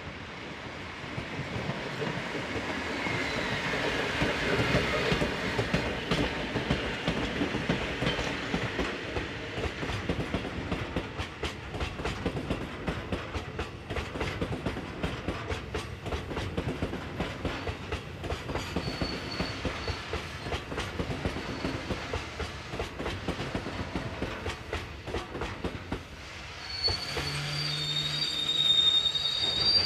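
Sangi Railway freight train of hopper wagons hauled by an ED45 electric locomotive passing close by. A falling whine sounds as the locomotive goes past, then the wagons' wheels click steadily over the rail joints. High wheel squeal starts near the end.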